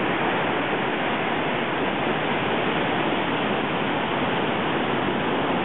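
Steady, even rush of surf and wind on the microphone, with no breaks or changes.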